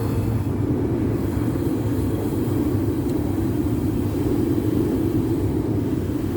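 Blacksmith's forge running with a steady rumble while a steel drift heats toward critical temperature for normalizing.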